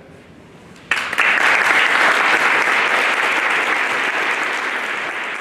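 Audience applauding, breaking out suddenly about a second in and going on as a dense, steady clapping.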